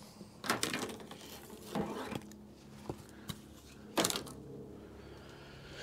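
A few short clicks and rustles of hands and a cloth working at the truck's window frame, wiping it down with isopropyl alcohol before the stick-on wind deflector goes on. A faint steady low hum runs underneath.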